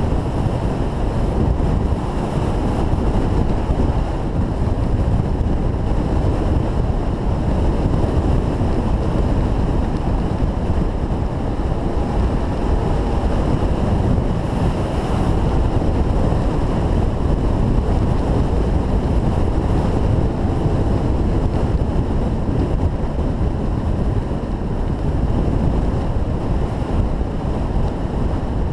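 Wind buffeting the microphone of a camera moving fast downhill behind a longboarder: a loud, steady rush with no breaks.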